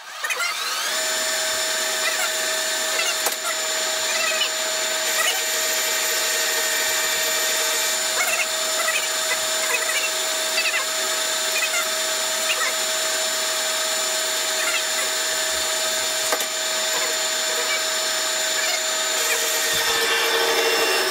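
Pratt & Whitney engine lathe starting up and running steadily while cutting thread passes. Its motor and gearing whine up to speed in the first second, then hold a steady high whine.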